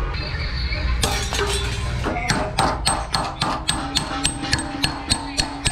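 Hammer striking a flat chisel held against the sheet-metal side channel of a truck radiator core: a quick series of ringing metal taps, about four a second, starting about two seconds in.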